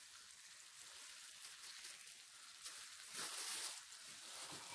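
Floured pieces of pike frying in oil in a pan on a portable gas stove: a faint, steady sizzle, louder for about half a second some three seconds in.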